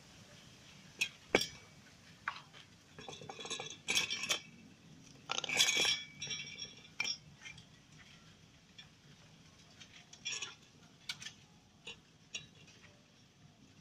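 Metal tools and bracket parts clinking and tapping against each other as they are handled, a scatter of separate clinks with short metallic rings, the loudest about four and six seconds in. The grinder motor is not running.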